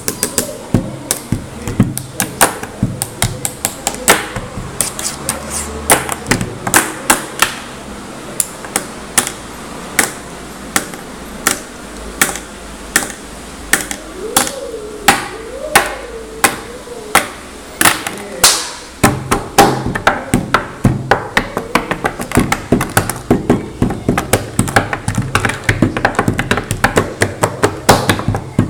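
Pen tapping beat: a pen and fingertips drumming on a wooden desk in a fast, rhythmic pattern of sharp knocks and clicks, some strikes much louder than the rest.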